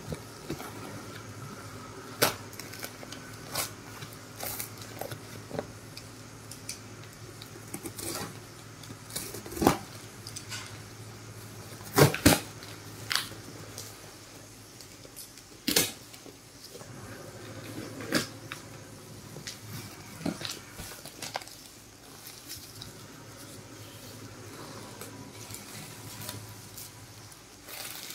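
Tape-wrapped cardboard box being torn open by hand: packing tape and cardboard flaps crinkling and ripping, with irregular sharp crackles and knocks, the loudest about ten, twelve and sixteen seconds in, over a low steady hum.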